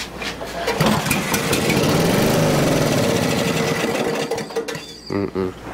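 Briggs & Stratton 8 HP I/C single-cylinder engine pulled over with its recoil starter: it turns over with a rising then falling pitch for a few seconds and winds down without starting, with a few short knocks near the end. The engine won't start, and the owner expects its carburettor needs cleaning.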